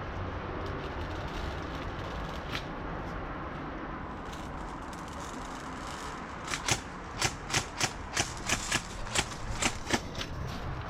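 Steady rustling noise, then from about six seconds in a string of about a dozen sharp single airsoft shots, irregularly spaced.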